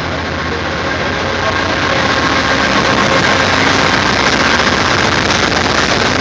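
Amtrak GE Genesis P42DC diesel locomotive's engine running as it draws alongside on the platform track. It grows louder over the first couple of seconds, then holds steady.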